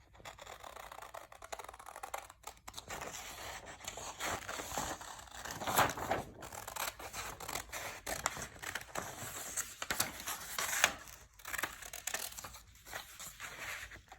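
Scissors cutting through paper in a run of irregular rasping strokes, with the paper rustling as it is handled.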